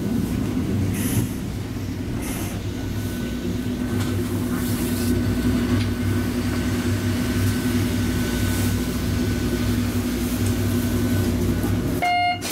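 Hakodate city tram, car 719, running along the line, heard from on board: a steady low rumble of wheels and running gear with a steady motor hum. A short tone sounds near the end.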